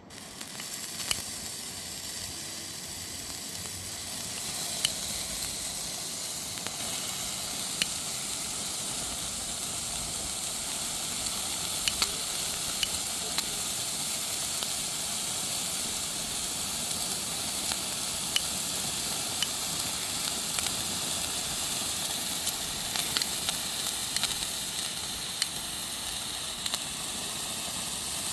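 A novelty firework burning with a steady hiss and scattered sharp crackles.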